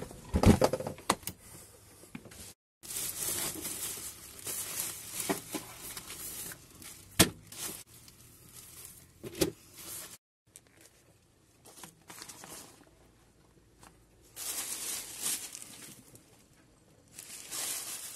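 Plastic carrier bag crinkling and rustling in bursts as net bags of mussels and clams are lifted out of it into a stainless-steel sink, with a couple of sharp knocks. The sound breaks off abruptly twice.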